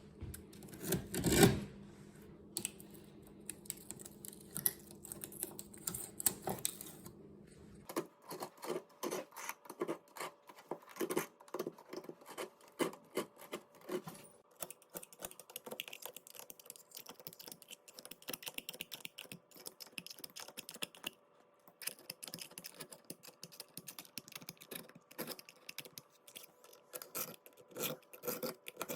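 Hand tool scraping and rasping at tile grout on a kitchen counter in quick, irregular short strokes, with a loud knock about a second in.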